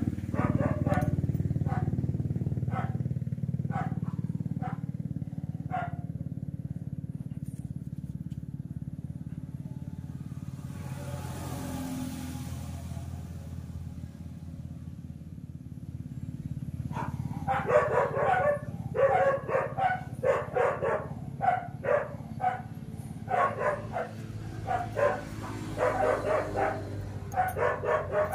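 A steady low drone, with a dog barking in quick, repeated barks that start about two-thirds of the way in and keep going.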